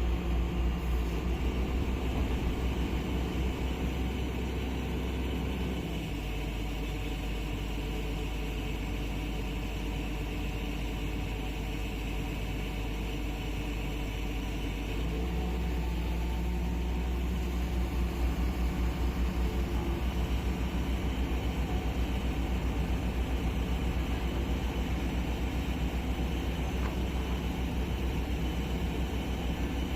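A heavy excavator's diesel engine runs steadily under working load. It eases off about six seconds in, then picks up again about halfway through with a faint even pulsing.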